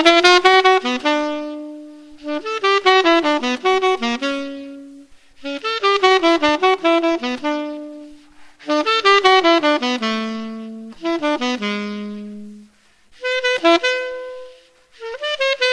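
Solo C-melody saxophone (a silver-plated 1923 Buescher True Tone with a metal Otto Link mouthpiece) playing a choro melody. It plays quick runs of notes in phrases of a few seconds, each ending on a held note, with short breath pauses between them.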